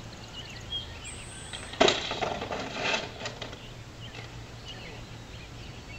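A bicycle clattering: one sharp knock about two seconds in, followed by about a second and a half of rattling. Birds chirp faintly throughout.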